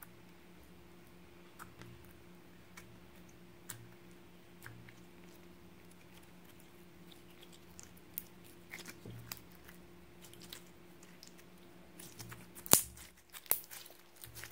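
Clear glitter slime being kneaded, stretched and squeezed by hand, making scattered small sticky clicks and pops, with a sharper loud pop near the end. A faint steady hum runs underneath.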